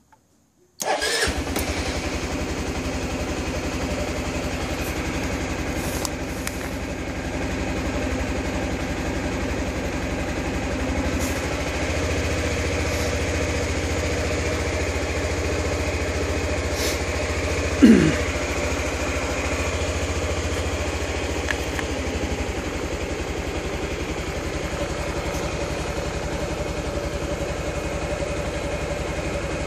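Suzuki Burgman/Skywave scooter's single-cylinder engine starting about a second in, catching at once and settling into a steady idle. Just over halfway through comes one brief, loud, falling squeak.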